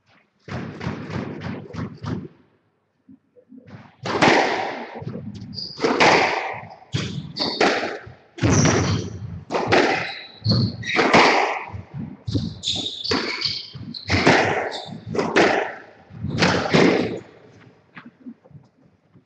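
Squash rally: the ball is struck by rackets and hits the court walls about once a second, each impact echoing round the court. Shoes squeak briefly on the wooden floor between shots, and the rally stops about 17 seconds in.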